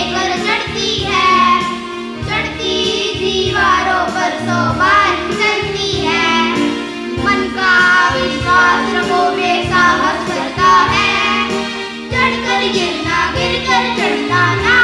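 A group of young boys singing a Hindi song together into microphones, over backing music with a steady low beat.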